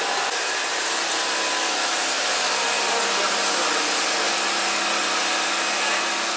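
A motor-driven machine running steadily: a constant hiss over a few fixed whining tones, with no change in speed.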